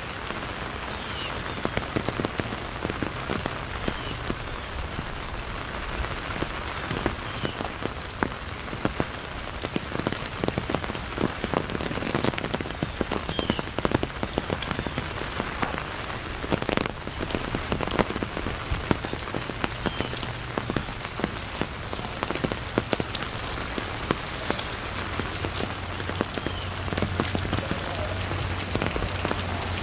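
Steady rain falling, with many individual drops tapping sharply and close by.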